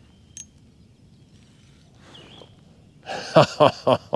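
Faint outdoor background with a single light click about half a second in. Near the end come four short wordless vocal sounds from a man, each falling in pitch.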